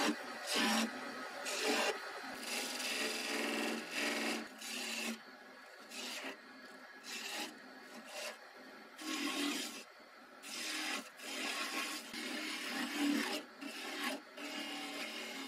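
Chisel cutting grooves into a pale wood spindle spinning on a wood lathe: a rasping, shaving sound in repeated short strokes, each from a fraction of a second to about a second long, with short pauses between cuts.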